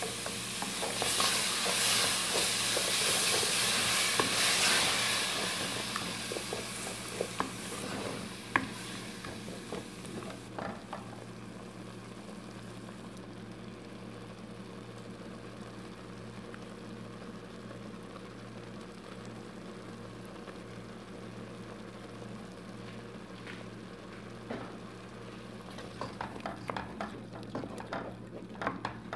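Tomato sauce sizzling hard in hot oil over fried onions as it is stirred in, the sizzle loud for the first few seconds and dying down by about ten seconds in. After that the sauce cooks quietly while a wooden spoon knocks and scrapes against the pot, with busier stirring near the end.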